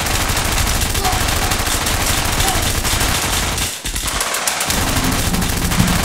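Many stock gunfire sound effects layered on top of each other: rapid automatic fire and shots from several different guns piling up into one dense, continuous barrage, with a brief lull about four seconds in.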